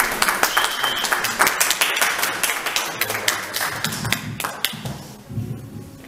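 Audience applauding, a dense patter of claps that thins out and dies away about five seconds in.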